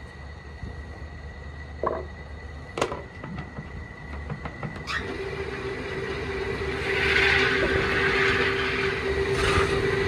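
Belt-driven wood lathe running with a steady low hum and rumble. Two short knocks come around two and three seconds in. A steady whine sets in about five seconds in, joined by a hiss from about seven seconds.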